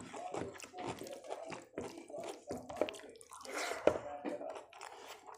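Wet mouth and hand sounds of eating rice and rajma by hand: fingers mixing food on a plate and chewing with moist smacks and clicks. The loudest is a slurping burst with a sharp smack a little under four seconds in.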